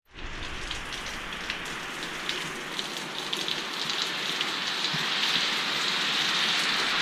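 Steady rain falling, with scattered sharper drops standing out. It grows slightly louder over the last couple of seconds.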